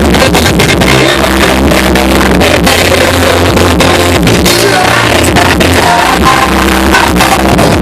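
Live rock band playing loud through PA speakers, heavily distorted from being recorded too close to them: pounding drums and heavy bass, with singing.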